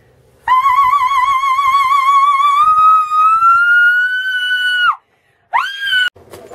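A woman sings one long, loud, high note with vibrato at a wine glass, trying to match the glass's resonant frequency to shatter it. The note is held about four and a half seconds, creeping slowly upward in pitch, and is followed by a short second note that swoops upward and cuts off.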